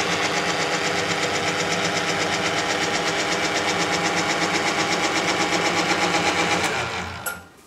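Thompson cylinder boring bar running under power in gear, its motor and gearing feeding the bar back up out of the cylinder bore: a steady mechanical whir with a fast, even beat. It stops about seven seconds in.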